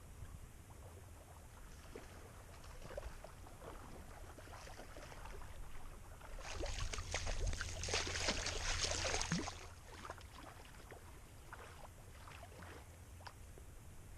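River water splashing in small irregular sloshes, loudest for about three seconds midway through.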